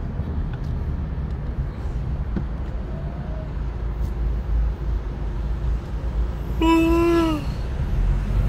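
Steady low rumble of engine and road noise inside a car's cabin. About seven seconds in comes one short pitched call that falls slightly, voice-like.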